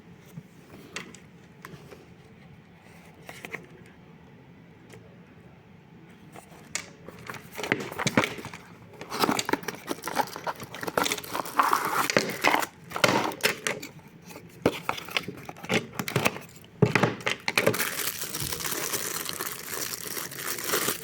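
Plastic packaging crinkling, rustling and tearing as it is handled, with scattered clicks at first. It gets much louder and busier about seven seconds in.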